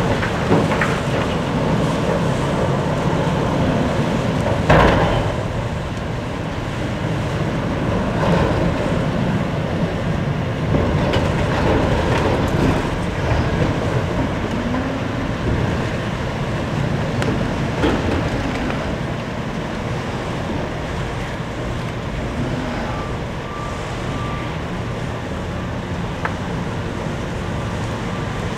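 Steady, loud mechanical noise of the Silver Spade, a giant electric stripping shovel, running, with a sharp knock about five seconds in and a few lighter knocks later.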